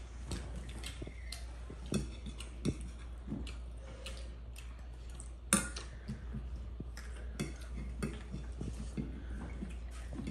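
Spoons and dishes clinking as people eat: scattered light taps and clicks, with one sharper, louder clack about halfway through.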